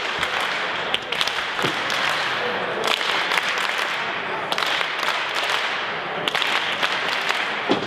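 Live audience applauding, with many sharp individual claps standing out; the clapping swells a few times.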